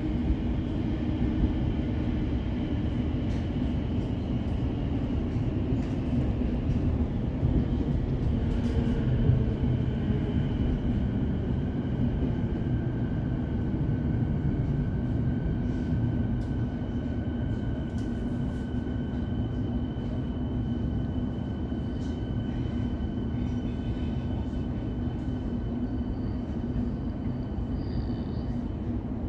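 Suburban electric train running between stations, heard from inside the carriage: a steady rumble of wheels on track with a faint steady whine, a second whine tone joining about nine seconds in, and a few brief clicks.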